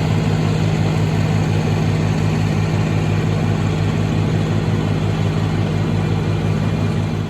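Tractor engine running steadily at constant speed, a loud, even hum with a pulsing beat.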